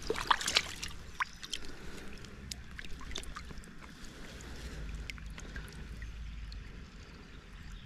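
Small splashes and drips of water as a brown trout is handled in a landing net, densest in the first second, over the low, steady wash of the river.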